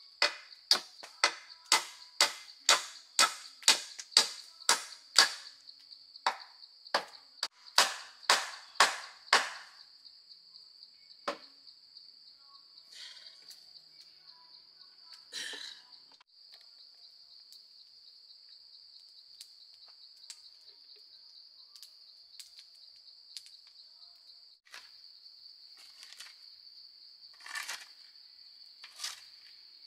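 A quick run of sharp blows from a tool striking wood, about three a second for roughly nine seconds, then a few scattered knocks. A steady high insect drone runs underneath.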